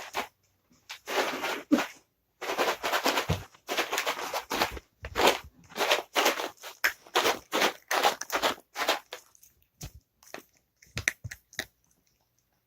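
Dry cat treats rattling in their container as it is shaken in quick, irregular bursts with short pauses, the shakes growing sparser near the end and stopping shortly before it.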